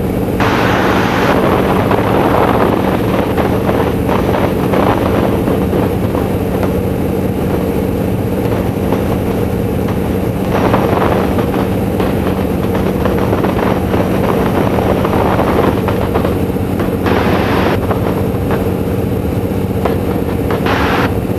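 Boeing Stearman biplane's radial engine and propeller running steadily at cruise power, with wind rushing over the open cockpit.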